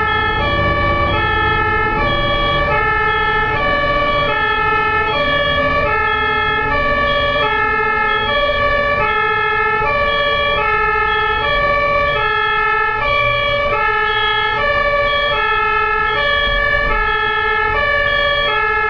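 German-style two-tone ambulance siren (Martinshorn), switching steadily between a lower and a higher note about every two-thirds of a second, over low road and engine rumble.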